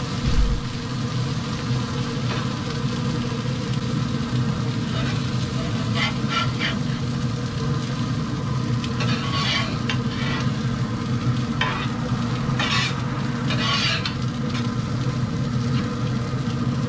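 Shrimp and seafood patties sizzling on the open grate of a Pit Boss pellet grill over a steady low hum, with metal tongs scraping and clicking against the grate several times as the food is turned.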